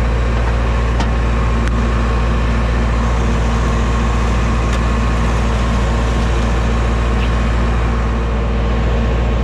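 Steady, even mechanical drone with a low hum, broken only by a few faint clicks.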